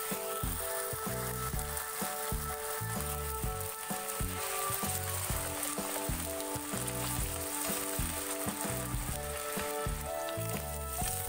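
Taro chunks frying in hot oil in a nonstick pan, a steady sizzle throughout, under light background music with a beat.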